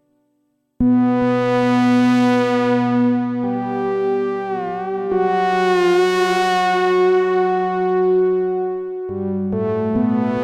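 Sequential Prophet Rev2 analog polyphonic synthesizer playing sustained chords on a custom patch. After a short silence the chords come in abruptly about a second in. Their brightness swells and fades, with a brief pitch wobble near the middle, and the chord changes a couple of times.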